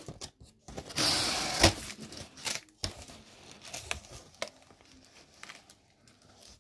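Cardboard box flaps being pulled open and scraped back over a load of polystyrene packing peanuts, which rustle and creak. A loud scraping rustle comes about a second in, then scattered clicks and softer rustling that die down near the end.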